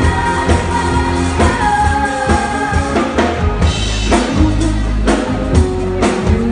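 Live band music: a woman singing a pop song over a drum kit keeping a steady beat, with a strong bass underneath.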